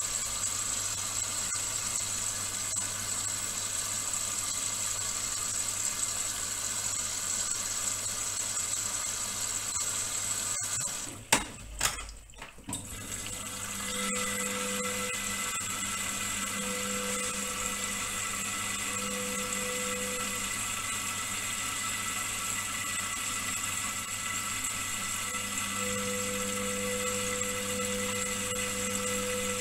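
Indesit front-loading washing machine in its wash phase: water sloshing as the drum turns a load of towels, with a steady machine hum. About 11 seconds in there is a short break with two knocks, and after it a motor hum comes and goes with the drum's turns, holding longer near the end.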